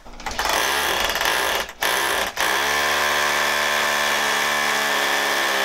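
Makita power drill running with its bit pushed down into a toilet bowl's drain to clear a blockage. The motor whine is steady, stops briefly twice in the first couple of seconds, then runs on evenly.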